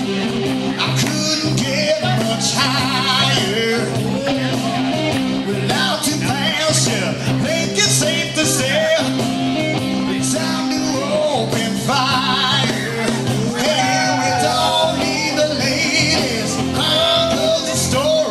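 Live rock-and-roll music played on Yamaha arranger keyboards, with steady held bass notes, a regular beat, and a lead melody line over them.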